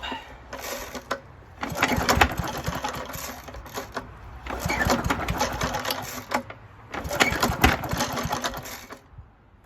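1972 Hayterette rotary mower's engine cranked on its starter in three bursts of about two seconds each, turning over rapidly without catching: a cold, very worn engine on months-old fuel that is hard to start.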